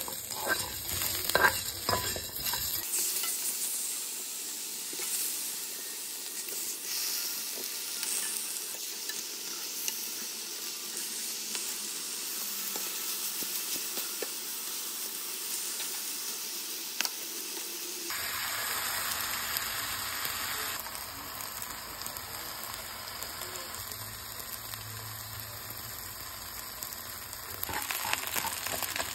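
Food sizzling in a hot frying pan. For the first few seconds tongs stir sautéing garlic and onion with sharp clicks. Then comes a steady hiss of meat searing, and about two-thirds of the way through a fuller sizzle as brown sugar caramelizes in the pan.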